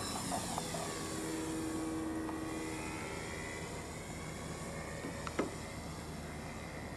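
Electric motor and propeller of an RC model Beaver seaplane whining as it climbs away after take-off, fading with distance, its pitch dipping and then rising as it flies. A brief click about five seconds in.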